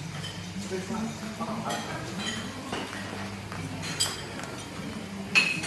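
Plates, bowls and cutlery clinking at a buffet, over voices in the background. A sharp clink comes about four seconds in, and a louder ringing one near the end.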